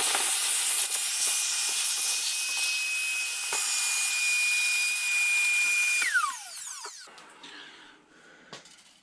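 Vacuum cleaner switched on with a quickly rising whine, running steadily as its nozzle sucks up metal drilling chips, then switched off about six seconds in, its whine falling as the motor winds down. Faint handling clicks follow.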